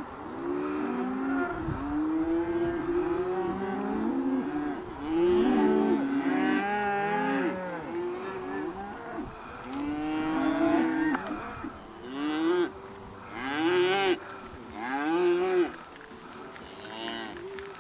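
A herd of range cattle mooing and bawling, many overlapping calls from several cows one after another, some long and drawn out.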